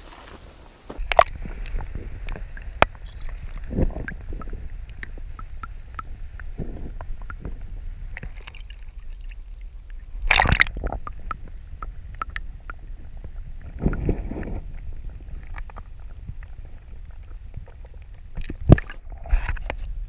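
Water sloshing and gurgling around a camera held at and below the surface, muffled, with a steady low rumble and a few sharp knocks and splashes, the loudest about ten seconds in and another near the end.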